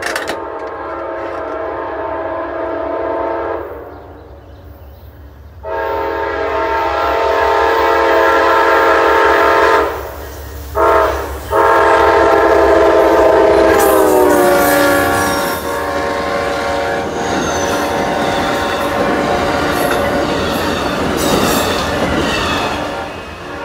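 Amtrak passenger train led by two GE P42DC diesel locomotives sounding its horn for a grade crossing in the standard long, long, short, long pattern. The last blast drops in pitch as the locomotives pass, and then the passenger cars roll by with a steady clickety-clack of wheels over the rail joints.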